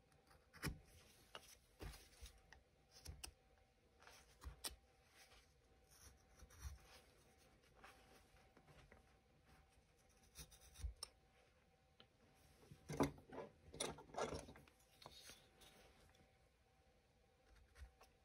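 Steel carving tool slicing into basswood: a series of short, faint cutting and scraping strokes, with a quicker, louder run of cuts about thirteen seconds in.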